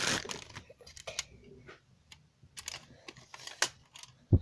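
Scattered sharp clicks and taps of a plastic model kit and its packaging being handled, with a single dull thump shortly before the end, the loudest sound.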